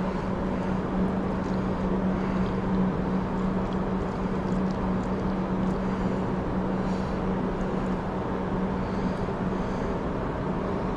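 A steady machine hum with a constant low droning tone, and a few faint small metallic ticks.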